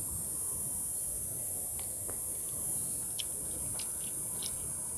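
Cicadas droning in a steady, high-pitched chorus, with a few short, high chirps scattered over it.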